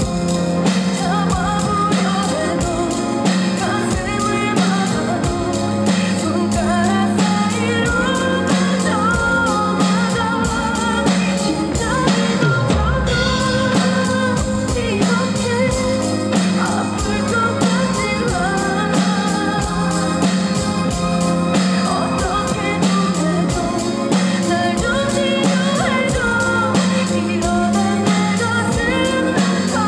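Acoustic drum kit played to a steady beat with cymbals, over the recorded pop ballad's backing track and melody.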